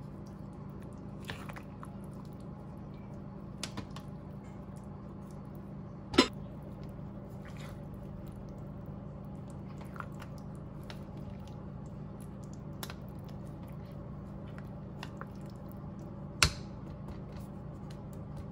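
Thick stew being stirred in a slow cooker's crock with a silicone spatula: soft squishing with small clicks, and two sharp knocks of the spatula against the pot, over a steady low hum.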